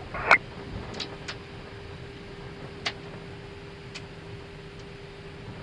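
Switches on an Airbus A319's overhead panel clicking as the crew sets them after landing: a handful of single sharp clicks, a second or more apart, over the cockpit's steady hum while the airliner taxis.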